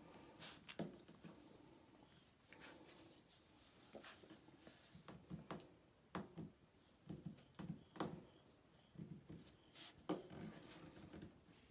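Faint, scattered light taps and rubbing from a hand patting and stroking a young Irish Doodle puppy on a hard floor, with the puppy shifting about.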